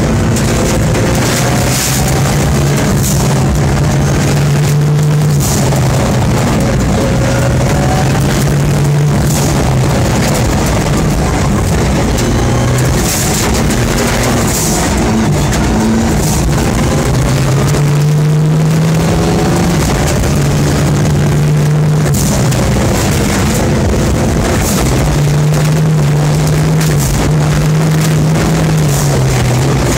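Mitsubishi Lancer Evolution rally car's turbocharged four-cylinder engine under hard driving, heard from inside the cabin, its pitch climbing and dropping again and again with gear changes. Tyres on gravel make a steady hiss, with many sharp clicks from loose stones striking the car.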